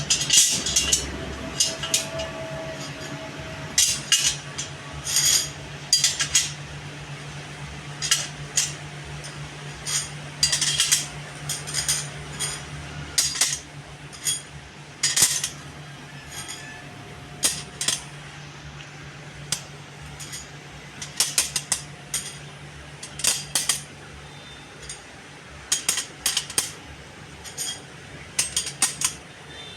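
Irregular light metal-on-metal clinks and taps, as of steel tools handled on steel channel in a workshop, over a steady low hum that stops about 25 seconds in.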